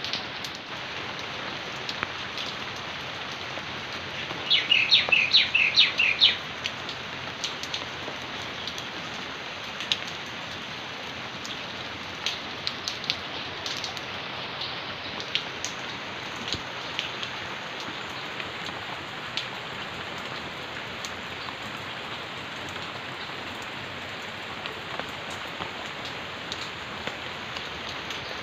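Steady rain falling on garden plants and pots, with scattered louder drips ticking close by. About four seconds in, a bird gives a quick run of loud, rapid chirps lasting about two seconds.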